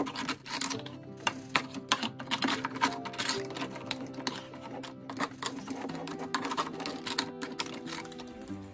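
Background music over a wooden spatula knocking and scraping against the pan in quick, irregular clicks as melting sugar is stirred.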